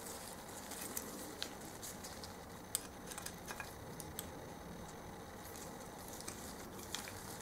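Faint, scattered small clicks of metal parts being handled: circlip pliers, a circlip and the gearbox shaft being picked up and set up for fitting.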